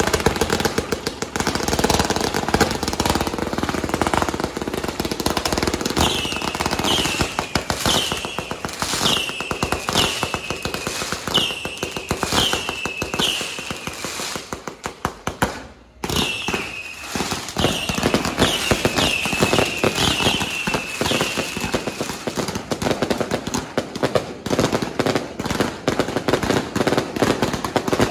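Firecrackers and ground fireworks going off nonstop in a rapid, dense crackle. A run of short falling whistles from whistling fireworks sounds about once a second through the middle, with a brief lull just past halfway.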